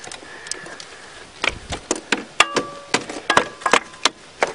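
A quick series of about a dozen sharp metal-on-metal taps and clanks starting about a second and a half in, some leaving a brief ring. Locking pliers, used as a hammer, are striking the Eagle Talon's starter motor to free a starter that only clicks.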